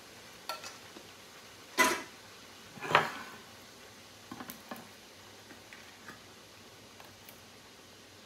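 Metal food cans of diced tomatoes clanking against a skillet as they are emptied: two loud clanks about a second apart, then a few lighter taps and clicks.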